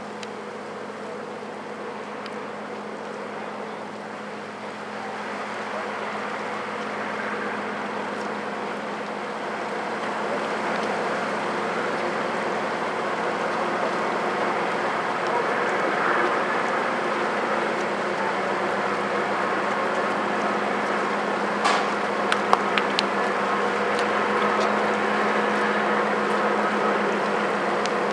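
Distant Canadian Pacific freight train passing with its grain hopper cars: a steady diesel-locomotive drone over the rolling noise of the cars, growing gradually louder. A few sharp clicks come about two-thirds of the way in.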